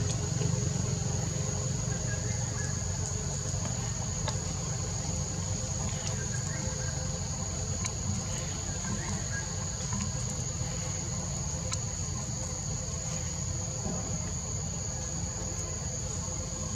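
Forest insects singing in one unbroken, steady high-pitched drone over a low rumble, with a few faint clicks.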